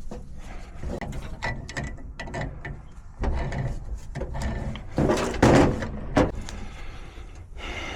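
Metallic clicks, scrapes and clatter of gas pipe fittings being handled and threaded together, loudest a little past halfway.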